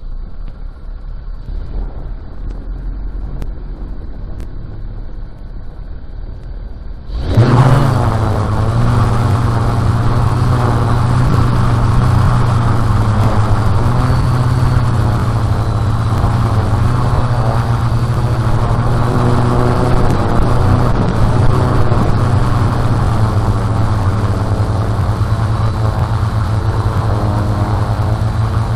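Homemade quadcopter's four brushless motors with 12-inch propellers spinning up suddenly about seven seconds in, then running steadily in flight with a loud low propeller hum.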